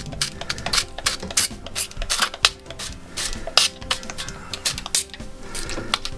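Hand-pumped oil spray bottle squirting repeatedly, short sprays coming two or three times a second.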